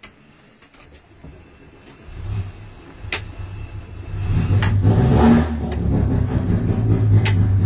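A 1293cc A-series racing Mini engine on an engine dyno starts up about two seconds in and settles into a steady run, louder from about four seconds. It is heard muffled from the control room through the soundproof cell's glass, with a few sharp clicks over it.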